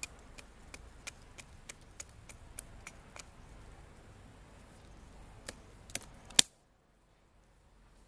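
Marttiini Wilderness axe's small carbon-steel blade striking a thin stick of wood in quick light chops, about three a second. A pause follows, then three harder strikes, the last the loudest, after which the sound drops out abruptly.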